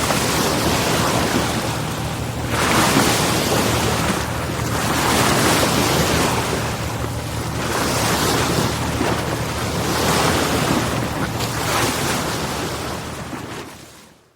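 Ocean surf: waves washing in, swelling every two to three seconds, over a steady low hum. It fades out near the end.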